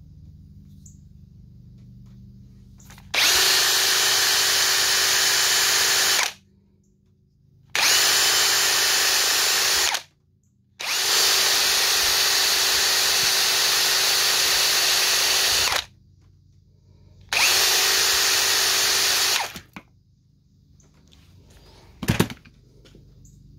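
Electric drill spinning a wire cup brush against an engine's intake valve to scrub off carbon buildup. It runs steadily in four bursts of about two to five seconds each, with short pauses between. A single knock comes near the end.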